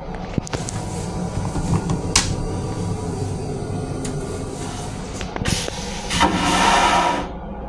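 Train toilet flushing over the low rumble of the moving railcar: a hiss of rinsing water, a sharp click about two seconds in, then a loud rushing whoosh of the vacuum flush near the end that cuts off abruptly.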